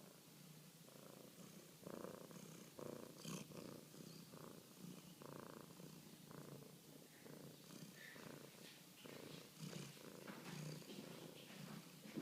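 A cat making a quiet run of short, irregular noises, the chattering a cat makes while watching a bird.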